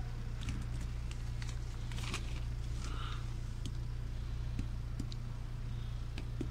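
Dried Ajwa dates scooped by hand and dropped back onto a pile in a plastic-lined box: scattered soft clicks and taps with some plastic rustling, over a steady low hum.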